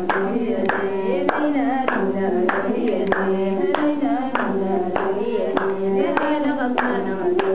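Women singing together to steady hand-clapping, a little under two claps a second, with an imzad, the Tuareg one-string bowed fiddle, being bowed along.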